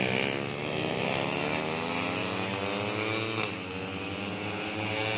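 Several 150cc four-stroke underbone race motorcycles at high revs. Their overlapping engine notes rise and fall in pitch as they pass.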